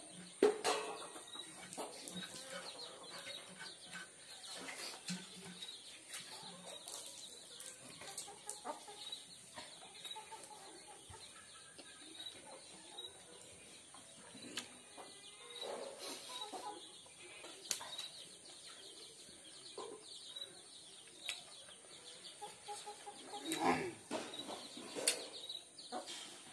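Close eating sounds: chewing and fingers working rice on a steel plate, with short clicks and smacks. Birds call now and then in the background, and a louder burst of sound comes near the end.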